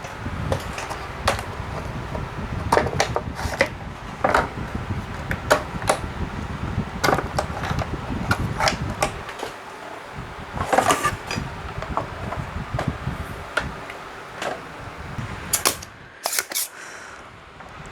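Repeated sharp clicks and taps of hand tools working on a CRT TV's circuit board, over a low steady hum that drops out briefly about halfway through and stops near the end.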